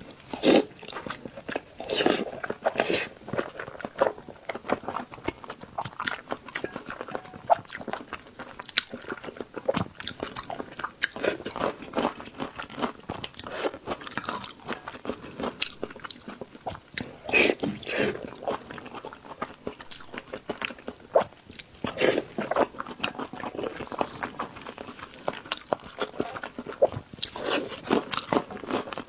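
A person eating braised meat: repeated wet bites, chewing and lip smacks in irregular clusters.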